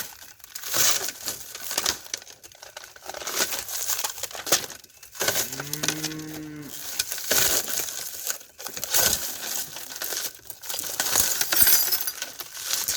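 Plastic and panel parts of a plasma TV being broken up, crackling and cracking in irregular bursts, with a low, drawn-out moo-like call of about a second near the middle.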